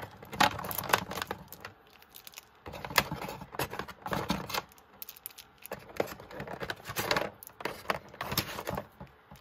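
Hot glue sticks clicking against one another and plastic packaging crinkling as they are handled, in irregular clicks and rustles.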